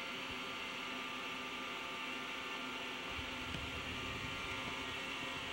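Daewoo Lynx 210A CNC turning center running, a steady machine hum with several fixed tones over a hiss. A low rumble joins about three seconds in, as coolant begins spraying inside the enclosure.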